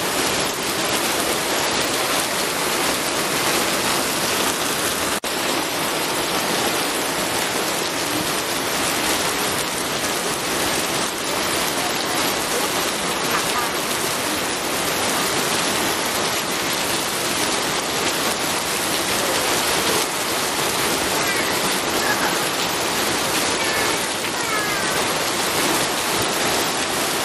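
Steady heavy rain: an even, dense hiss of falling rain, briefly dropping out for an instant about five seconds in.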